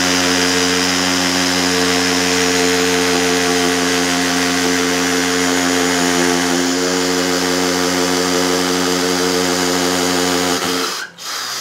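Mollar MLR-CID20500-U cordless hammer drill with a brushed (carbon-brush) motor, running steadily in hammer mode at low speed as an 8 mm bit bores into a lightweight aerated concrete (hebel) block. It stops shortly before the end.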